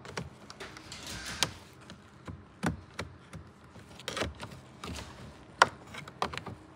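Plastic pry tool clicking and scraping against the lower dashboard trim panel of a 10th-gen Honda Accord, with sharp snaps as the panel's retaining tabs work loose. Several separate clicks, the loudest a little past five and a half seconds in, and a short scrape just after one second in.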